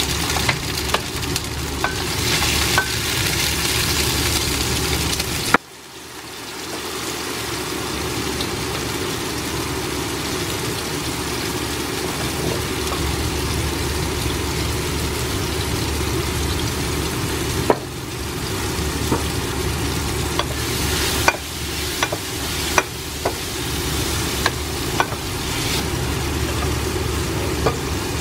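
Diced tomatoes and peppers frying in a non-stick pan, a steady sizzle, with a wooden spatula stirring and knocking sharply against the pan now and then.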